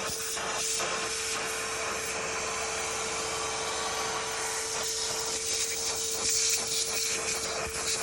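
Milwaukee M18 cordless wet/dry vac running steadily, a constant motor whine over the hiss of rushing air, while it vacuums dirt off the floor through a small crevice nozzle. Short scraping and rattling noises come and go at the nozzle.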